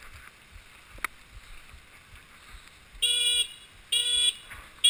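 A motorcycle's electric horn tooting in short, equal beeps about a second apart, starting about three seconds in. A single sharp click about a second in.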